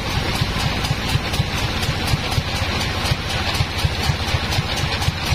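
Engine of a bandsaw sawmill running steadily at idle, with a regular low thumping several times a second; the saw is not cutting.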